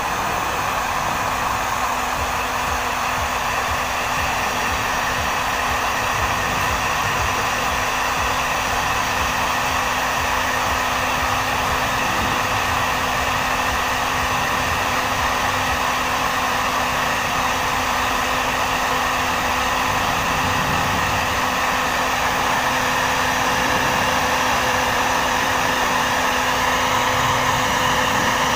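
Electric hot-air blower, a heat gun, running steadily with a motor hum under the rush of air, heating the end of a PPR pipe to soften it.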